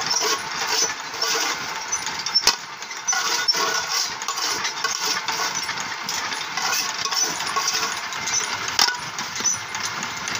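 Motor-driven puffed-rice (muri) roasting machine running, its stirrer churning rice grains in a clay-oven pan with a dense rattling crackle. Rice is poured in from a metal bowl, and two sharp clicks stand out, about two and a half seconds in and again about nine seconds in.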